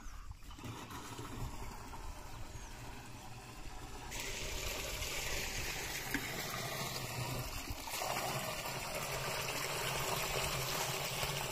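Water gushing from a pipe into a plastic drum, filling it. The rush of water gets louder about four seconds in.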